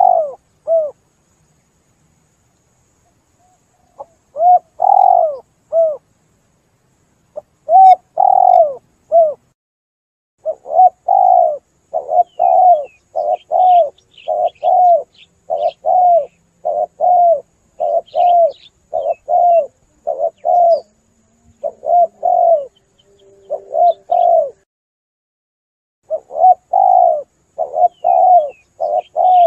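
Spotted dove (tekukur) cooing: repeated phrases of low, arched coos. After a pause of a few seconds near the start, the phrases come back and run on almost without a break from about ten seconds in. Faint high chirps of a smaller bird sound at times behind them.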